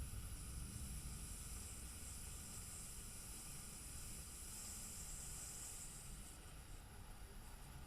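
A long, drawn-out exhale on an 'F' sound, breath hissing between lower lip and upper teeth, steady and then tapering off about six and a half seconds in.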